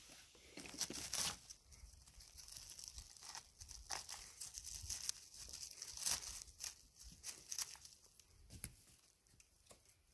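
Dry conifer needles, twigs and forest litter crackling and rustling as a hand works around a porcino (Boletus edulis) and pulls it out of the ground. The sound comes in irregular bursts, loudest about a second in and again around six seconds.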